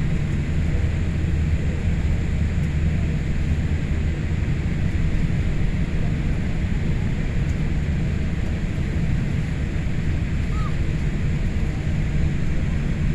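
Steady low rumble inside a Boeing 787's cabin on the ground before takeoff, with an even hum and no change in pitch.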